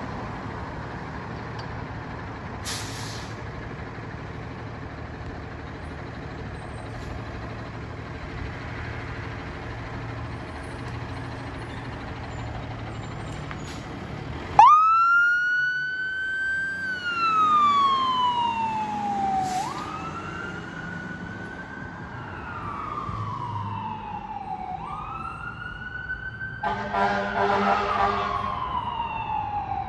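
Fire engine rumbling low and steady, then about halfway through its siren starts with a sudden loud wail, rising quickly and falling slowly in cycles of about five seconds. Near the end, horn blasts join the siren.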